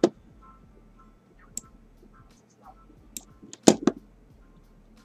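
A few scattered sharp clicks and taps: one at the start, single ones about a second and a half and three seconds in, then a louder quick cluster near the end.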